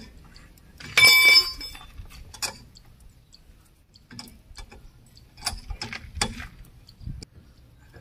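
Steel wheel spanner clinking and clicking against the wheel nuts as they are tightened on a car wheel, with one loud ringing metal clink about a second in and scattered lighter clicks after it.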